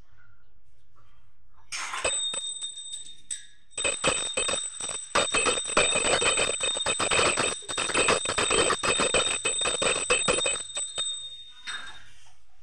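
Small puja hand bell (ghanti) rung rapidly and without stopping: fast clapper strikes under a steady high ring. It starts about two seconds in, breaks off briefly, then rings on until near the end.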